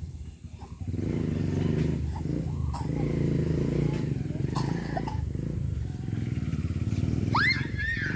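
An engine running steadily at idle, with a child's high shout about seven and a half seconds in.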